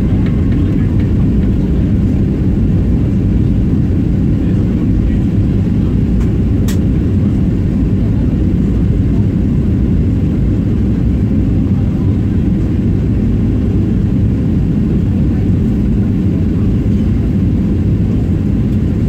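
Steady low rumble of an airliner's engines and airflow heard inside the passenger cabin in flight. A single brief click about six and a half seconds in.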